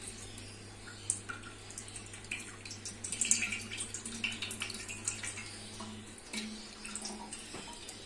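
Cooking oil heating in a large steel pot, with faint scattered crackles and ticks as it warms. A low steady hum runs underneath and stops about six seconds in.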